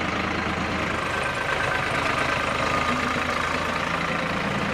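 Tractor diesel engine running steadily.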